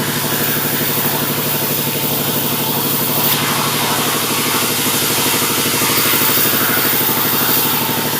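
Sawmill engine running at a steady speed, with a hiss over it that grows stronger about three seconds in.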